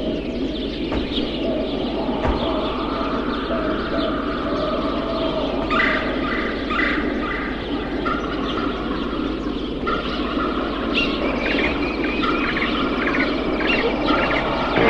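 Birds chirping over a steady outdoor background hiss, with runs of quick repeated calls about six seconds in and again from about eleven seconds on.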